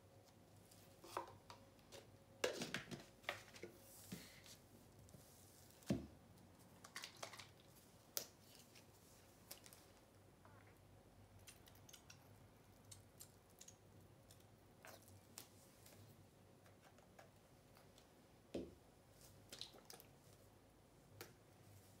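Quiet handling noise of small paint cups and a wooden stir stick: scattered soft clicks and taps, busiest in the first eight seconds, then sparse.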